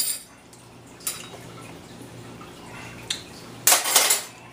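Short wet noises of salsa being tasted from a spoon: a brief one about a second in and a louder one lasting about half a second near the end, over a steady low hum.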